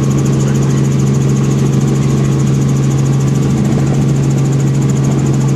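Light helicopter in flight, heard from inside the cabin: a steady loud drone of engine and rotors, a strong low hum with a fast, regular flutter up high.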